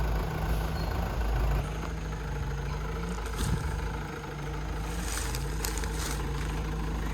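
Excavator's diesel engine running, its pitch climbing slowly and dropping back several times as the machine works.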